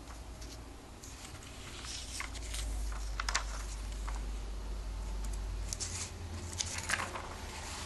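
Paper rustling and crinkling as a comic book is handled and its pages are turned, in irregular short rustles and clicks over a low rumble.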